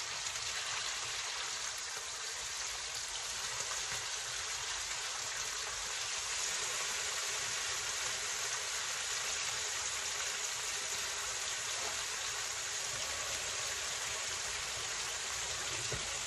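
Bacon sizzling steadily in hot grease on an electric griddle as raw strips are laid on.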